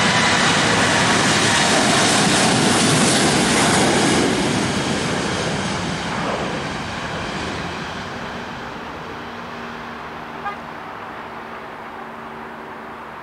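Boeing 737-700 airliner with CFM56-7B engines on its takeoff roll at takeoff thrust: loud jet engine noise with a hissing edge that fades steadily from about four seconds in as the jet rolls away and lifts off. A single short click about ten seconds in.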